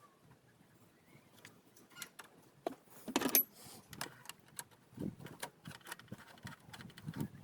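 Clicks, clinks and knocks of hand tools and metal parts being handled under the bonnet, with the loudest knock about three seconds in.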